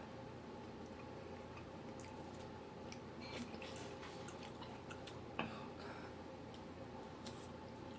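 Faint eating sounds while working through spicy curry noodles: scattered wet mouth clicks and smacks of chewing, the sharpest about halfway through, over a steady low background hum.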